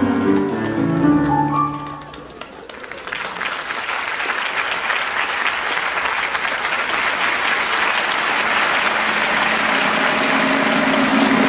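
A theatre orchestra plays the closing notes of a song, and about three seconds in a large audience starts clapping, a steady dense applause that carries on through the rest.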